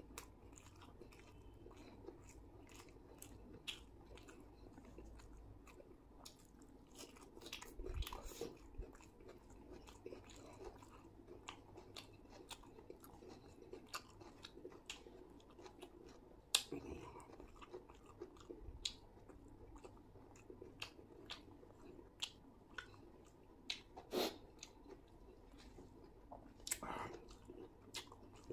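Faint close-up chewing of chicken biryani eaten by hand, with many small wet mouth clicks and smacks.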